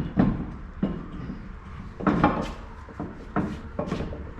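A series of hollow knocks and clunks from a car wheel being pushed onto the hub, striking the brake caliper behind it. The caliper does not clear the 16-inch wheel.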